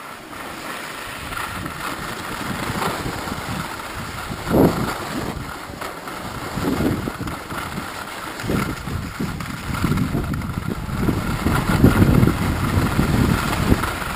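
Wind rushing and buffeting over an action camera's microphone while skiing downhill, mixed with the scrape of skis on packed snow. It grows louder as speed picks up after the first couple of seconds.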